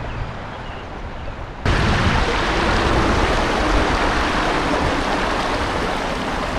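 River water rushing over a shallow, rocky riffle: a steady noise that jumps suddenly louder about a second and a half in. Before that, the flowing water is quieter.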